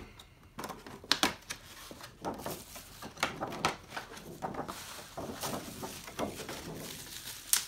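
Bubble wrap and plastic packaging crinkling and crackling as hands unwrap a tin, in irregular bursts with sharp clicks.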